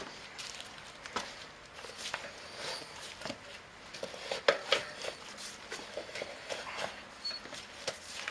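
An inner tube being pulled out of a dirt bike tire by hand: irregular light rubber scrapes, rustles and knocks, busiest about four and a half seconds in.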